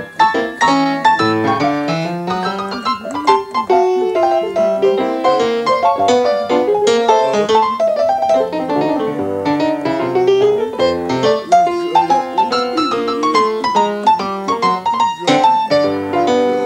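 Acoustic piano played in a fast jazz style, with both hands running lines and chords in a dense stream of notes and a quick upward run in the middle.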